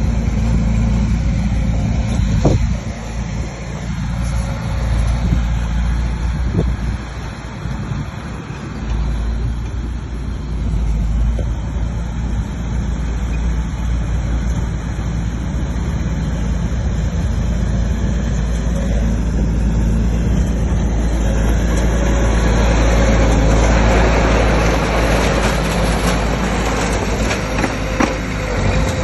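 Bulldozer's diesel engine running steadily at work, with a deep engine hum; it grows louder and fuller about three-quarters of the way through.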